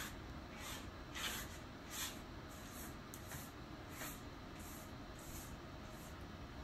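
Faint, quick rubbing strokes of a hand-held tool over a painted canvas, about eight soft scratchy swishes evenly spaced around two-thirds of a second apart.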